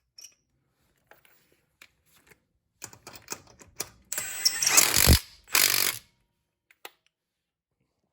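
Cordless impact wrench running with a 3/8-inch-drive impact socket, in a burst of about a second followed by a shorter half-second burst, after a few light clicks of the tool and socket being handled.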